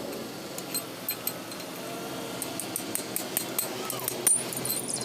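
Light metallic clinks and taps of tools and parts being handled, coming thick and fast from about halfway through, loudest a little after four seconds.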